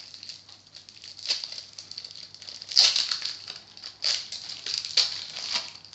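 Plastic wrapper of a trading-card pack crinkling and rustling as it is opened by hand, in irregular crackles with louder bursts about three, four and five seconds in.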